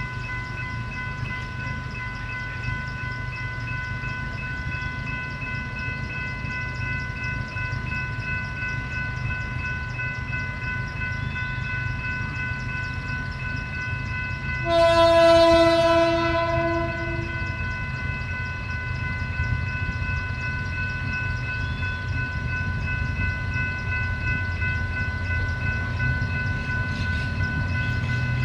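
General Motors GT-22 diesel locomotive approaching, its engine rumble slowly growing louder. About halfway through, it sounds its horn in one blast of about three seconds, the loudest sound.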